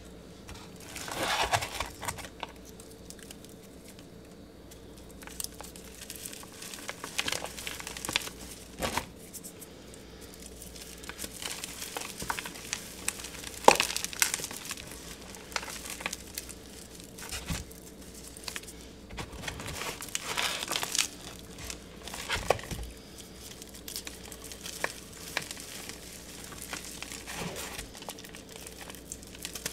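Hands crushing and crumbling a powdery, chalk-like block studded with confetti: irregular crunches and soft powdery rustling, the sharpest crunch about halfway through.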